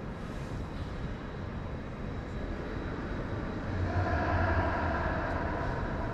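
Steady low rumbling hall ambience. About four seconds in, a louder hum carrying a few steady tones swells, then eases off a second or so later.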